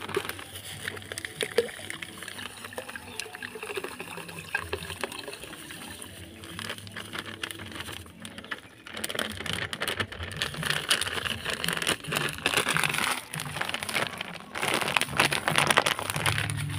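Fertilizer granules pouring from a crinkling plastic bag into a bucket of water, with splashing and sloshing as the bag is tipped and shaken over the water; louder in the second half.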